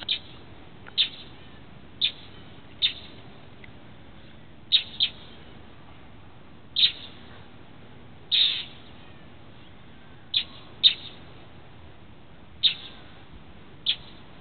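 Northern mockingbirds giving short, sharp scolding calls, about a dozen at irregular intervals of one to two seconds, a couple in quick pairs: mobbing a cat to drive it away.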